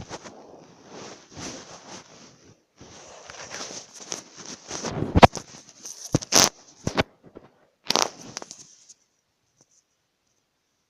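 Crackling, rustling handling noise with uneven swells, then several sharp clicks about halfway through; the sound cuts off completely near the end.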